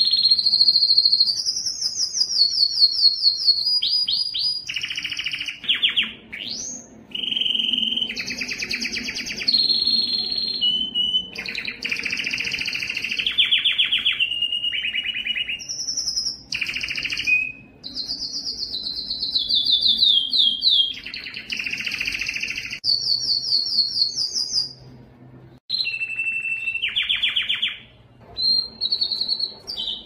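Domestic canary singing a long, rolling song of rapid trills. Each trill is a fast run of repeated notes at one pitch, switching abruptly to the next, with quick rising and falling whistles in between. The song breaks briefly twice near the end.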